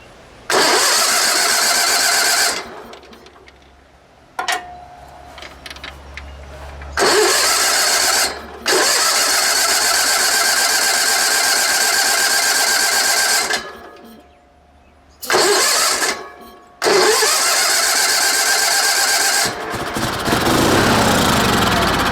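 16 hp Onan twin engine of a Sears garden tractor being cranked by its starter in about five bursts of a few seconds each, primed with brake parts cleaner after sitting for years. Near the end it fires briefly, which shows the ignition has spark.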